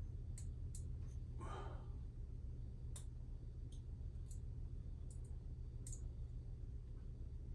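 Scattered light clicks and taps of hand tools being handled while working on a motorcycle engine's cylinder head bolts, over a steady low hum. A short breathy rustle comes about one and a half seconds in.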